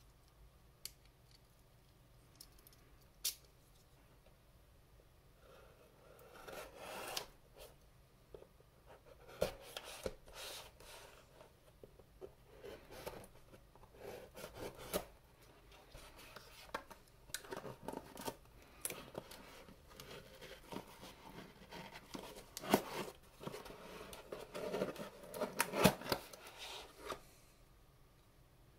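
Small scissors of a folding multitool snipping through the edge of a cardboard mailer envelope, in runs of short crisp cuts with paper and cardboard rustling. A couple of sharp clicks come first, before the cutting starts about six seconds in.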